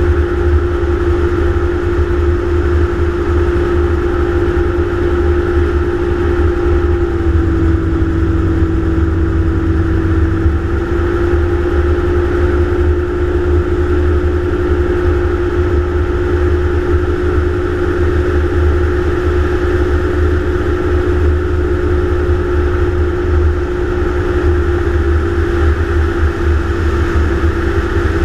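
Gyroplane engine running steadily in flight, its pitch dropping a little about seven seconds in and coming back up about three seconds later, over a heavy low rumble of wind on the microphone.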